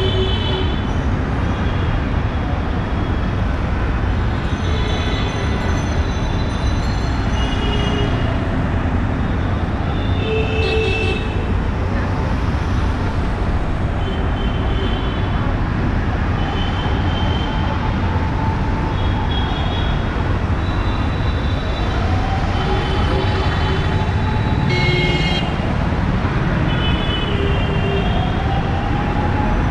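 Busy street traffic: a steady noise of engines and tyres, broken by short vehicle horn beeps every second or two, with people talking.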